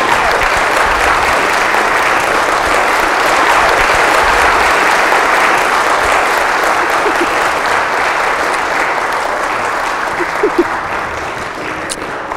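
Congregation applauding steadily, swelling at the start and tapering slightly near the end.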